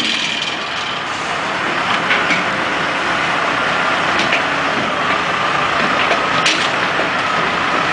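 Heavy diesel engine running steadily under load, with a few faint knocks over it.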